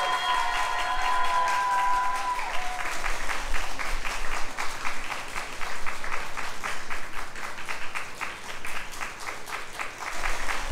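The final held chord of a dance-pop song fades out over the first couple of seconds, and the audience applauds with steady, dense clapping.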